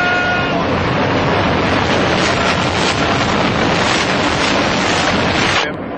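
The loud, steady rushing noise of a high-rise building's demolition collapse and its dust cloud, with a faint shout-like glide at the start. It cuts off suddenly near the end.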